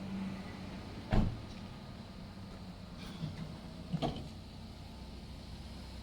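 Two sharp knocks, one about a second in and another about three seconds later, with a couple of fainter ones between, over a steady low hum.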